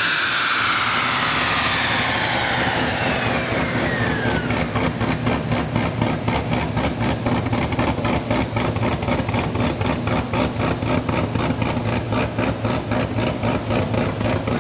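Heads-and-cam LS7 V8 of a Camaro Z28 on a chassis dyno coming down off a pull: a whine falls in pitch over the first four seconds or so, then the engine settles into a choppy, loping idle from the aggressive camshaft.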